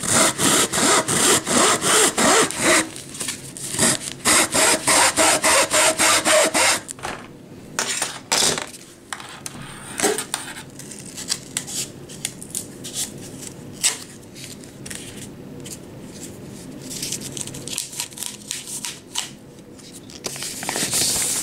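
Hacksaw cutting through a roll of wrapping paper and its cardboard core, in quick back-and-forth strokes for about the first seven seconds. After that, quieter scattered knocks and rustling as the cut paper roll is handled and pulled apart.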